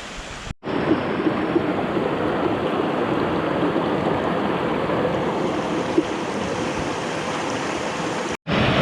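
Rushing river water, a steady loud wash that starts abruptly under a second in and cuts off abruptly shortly before the end.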